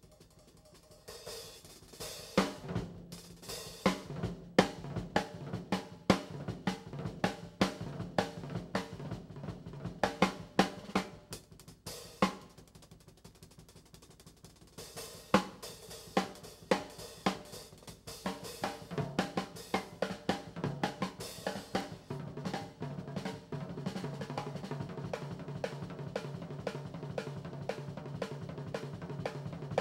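Background music led by a drum kit, with rapid snare, hi-hat and cymbal hits. It comes in about a second in and thins out for a few seconds around the middle.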